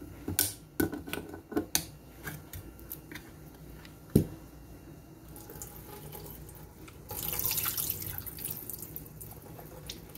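Liquid from a can of peas poured into a metal mesh strainer in a stainless steel sink, splashing for about a second and a half some seven seconds in. Before that come a quick run of clicks from a handheld can opener and the can lid in the first two seconds, and one sharp knock about four seconds in.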